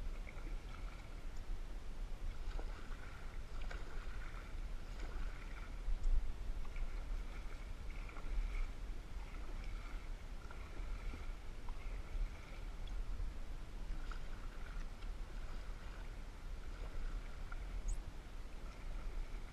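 Canoe being paddled across calm water: repeated paddle strokes swishing and dripping, with a few light knocks, over a steady low rumble.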